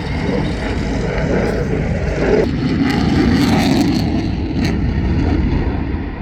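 Piston aero engines of a vintage propeller warbird, a loud steady drone.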